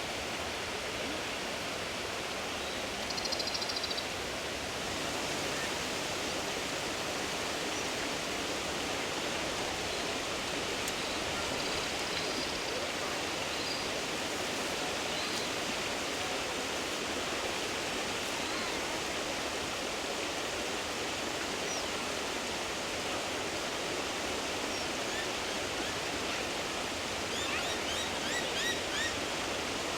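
Steady outdoor background hiss, even and unchanging, with a few faint high chirps about three seconds in and a quick run of them near the end.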